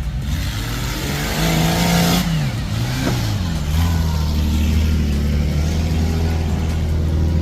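A 4x4 vehicle's engine revving up, its pitch rising for about a second, then dropping back about two seconds in as it eases off and settling into steady running. A loud hiss accompanies the first two seconds.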